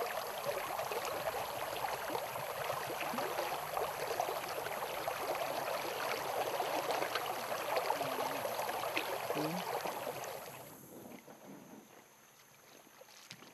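Flowing river water running steadily with a crackling, splashing texture, fading away about ten seconds in.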